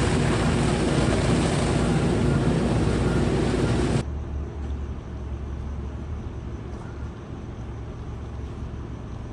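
Loud steady rushing noise of a firefighting water stream with a low engine drone underneath. About four seconds in it cuts off abruptly to a much quieter steady low rumble.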